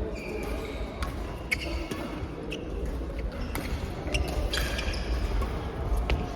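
Sharp hits of a ball or racket sounding in a large hall, irregular and roughly one a second, with short high squeaks of shoes on the court floor.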